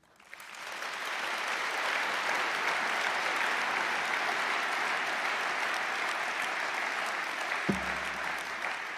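A large seated audience applauding, swelling up within the first second and then holding steady, with a brief low knock near the end.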